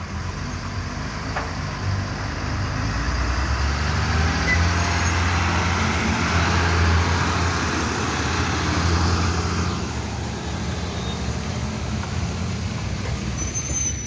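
Diesel tipper dump truck's engine running as the truck moves slowly past close by. The sound builds over the first few seconds, stays loudest through the middle, and eases off after about ten seconds.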